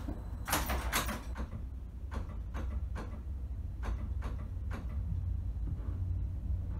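Signal box block bell rung in a series of single strokes, about nine in three groups, tapping out a bell code to the neighbouring box, over a steady low hum.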